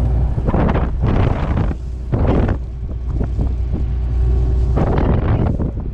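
John Deere 9660 STS combine running steadily with a low engine hum, with three short rushing bursts of noise over it, about half a second in, around two seconds in and near the end.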